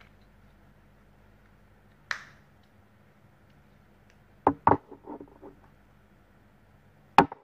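Hard plastic toy figures clicking and knocking as they are handled: one tap about two seconds in, two sharper knocks followed by a few softer clicks in the middle, and one sharp click near the end.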